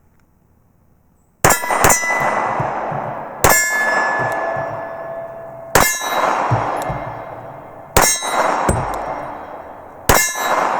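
9mm pistol shots from a Sig Sauer P320, fired slowly at about one every two seconds, with two quick shots at the start and the end. Each shot is followed by a long, fading metallic ringing.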